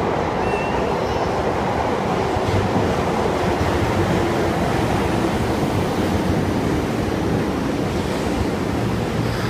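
Commuter train pulling into an underground station platform: a loud, steady rumble of wheels and motors in the enclosed station.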